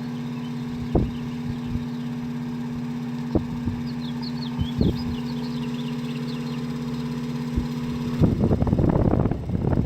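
Antique Emerson table fan running unoiled with a steady motor hum, broken by a few single knocks. About eight seconds in a louder rattle starts, whose source the owner cannot place and guesses is the center button.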